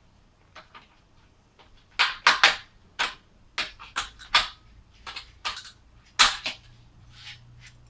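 A screwdriver prying at a sliding screen door's spring-loaded roller in its metal bracket: a string of sharp metal clicks and scrapes, loudest about two seconds in and again about six seconds in.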